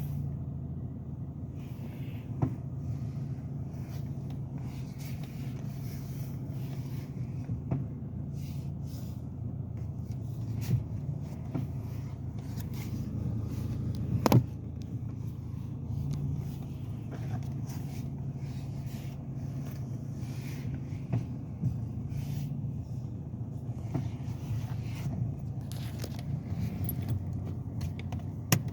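A 2007 BMW M Sport's engine running steadily, with irregular sharp clacks and clicks on top of it: the clacking noise fault the owner is chasing. The loudest clack comes about halfway through.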